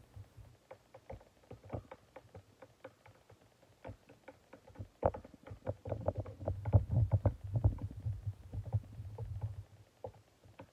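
Wooden craft stick stirring water-based clear gloss in a glass jar, mixing in powdered food colouring, with quick irregular clicks and scrapes of the stick against the glass. From about five seconds in the stirring grows busier and louder, with a low rumble under it.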